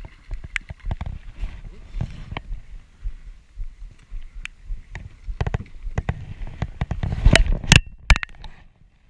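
Irregular knocks, bumps and clatter of feet and gear in a drift boat while a hooked cutthroat trout is being netted alongside. It is loudest in a cluster of sharp bangs near the end, one with a brief ringing tone.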